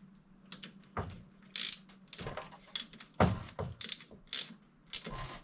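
Irregular metallic clunks, clicks and scrapes of a differential carrier being handled and turned on a workbench, about seven knocks with the loudest about three seconds in.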